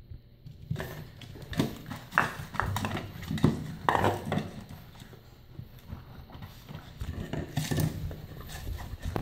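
Plastic water bottle crackling and knocking on a hardwood floor as a French bulldog puppy bites and paws at it, in irregular clicks and crackles, with the puppy's claws and paws on the floorboards.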